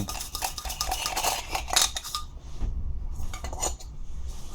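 Small metal clicks and scrapes as a brass bulb-holder locking ring is unscrewed by hand inside a lampshade, busiest in the first couple of seconds and then sparser.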